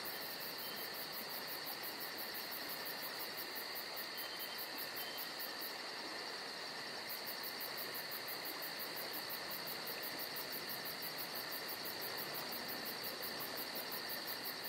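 Faint, steady background hiss with a rapid, even, high-pitched pulsing and no music or voice.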